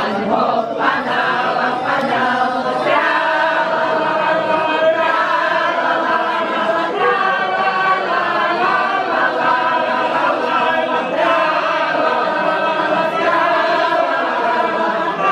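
A group of voices singing a Slovak folk song together, unaccompanied, with long held notes and no pause.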